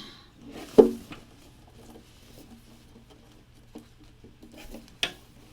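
Handling noises as small kit parts and cardboard packaging are moved about: one sharp knock a little under a second in, a lighter click near the end, and soft scattered ticks between.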